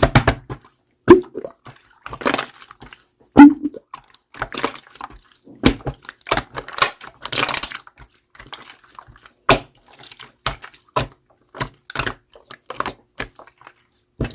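Clear slime being pressed, stretched and folded by hand, making irregular sharp pops and clicks with brief wet squelches between them.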